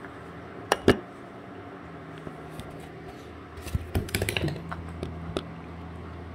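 Sharp clicks and taps on a hard surface: two close together about a second in, then a quick run of them about four seconds in and a single one after, over a steady low hum.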